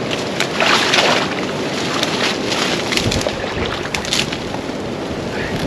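Dry cattail stalks rustling and crackling as a person wading in shallow marsh water pushes into them and works a muskrat hut, loudest about a second in. Wind buffets the microphone throughout.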